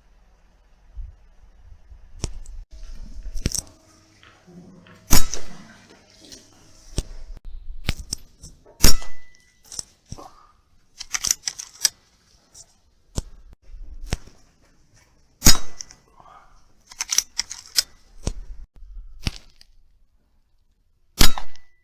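Rifle shots at rats: four loud sharp cracks several seconds apart, with smaller clicks and knocks between them.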